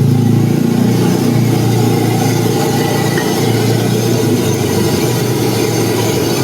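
Steady low roar of a street-food wok station's gas burner as fried rice cooks, unbroken with no clear strikes.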